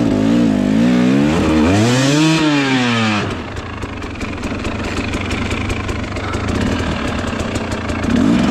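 Enduro dirt bike engine being ridden up a snowy trail. It revs up and back down over the first three seconds, then settles to a lower, steadier run with a fast, even ticking, and picks up again near the end.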